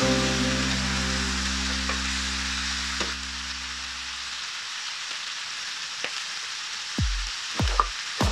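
Chicken feet frying in a nonstick pan, a steady sizzle, with a few sharp knocks of a spatula against the pan near the end. Background music fades out about halfway.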